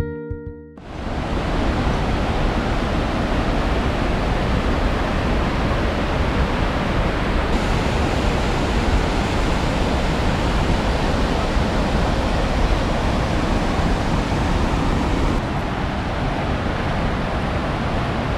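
River water rushing through rocky rapids, a loud, dense and even noise, which shifts slightly about seven seconds in and drops a little near fifteen seconds.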